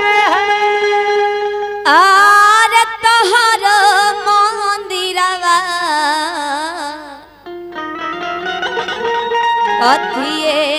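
Bhojpuri dugola folk singing: a woman's voice singing a wavering, heavily ornamented melody over a steady held note and instrumental accompaniment. The voice drops away briefly about seven seconds in, then the melody carries on.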